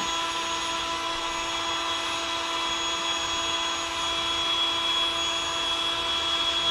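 Electric air pump motor running steadily as it inflates a chamber of an inflatable boat, a constant whine over a rush of air, getting slightly louder about two-thirds of the way through.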